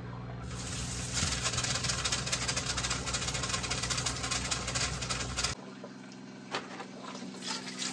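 RV fresh-water pump running with a steady, fast-pulsing hum while the kitchen faucet is open and the pump primes before water reaches the tap. It cuts off suddenly about five and a half seconds in.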